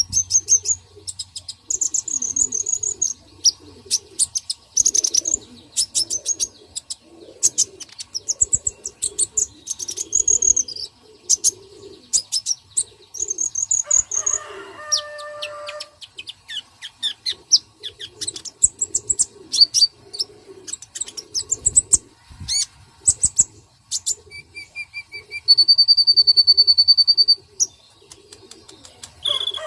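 Birds chirping in quick, dense runs of short high calls, with lower calls underneath throughout. About halfway through comes a short call with a low, evenly pitched tone, and near the end a long steady high note holds for about two seconds.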